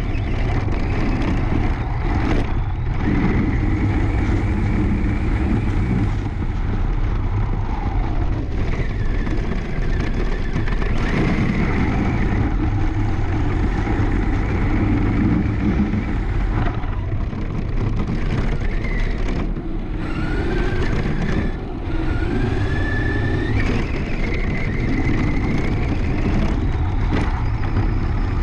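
Arrma Senton RC truck driving fast over a grass field, heard from a camera mounted on it. Its electric motor whines, rising in pitch several times as it accelerates, over a constant rumble of the tyres and chassis on the rough ground.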